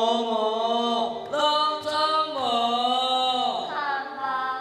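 A singing voice holding long notes one after another, about four in all, some sliding down in pitch as they end.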